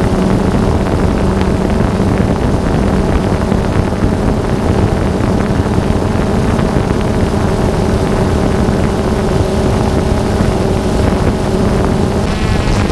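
Small multirotor drone's motors and propellers, a steady buzz with several held tones, picked up by the drone's own onboard microphone along with some wind noise. Near the end the upper tones drop away.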